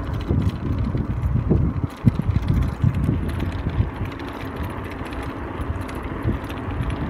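Riding noise from a camera carried on a moving bicycle: a low rumble of wind buffeting the microphone and tyres rolling on asphalt, with irregular knocks and rattles from the bike.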